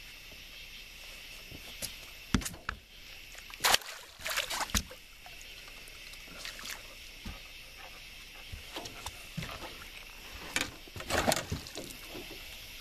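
Irregular splashes and sloshing water as a gar, struck by a bowfishing arrow, thrashes at the surface on the line. The splashing comes in bursts, strongest about four seconds in and again near the end, over a steady faint hiss.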